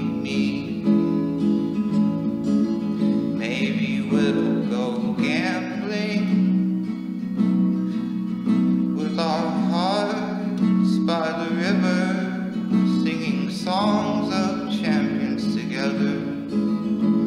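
Music: a song with acoustic guitar and a singing voice.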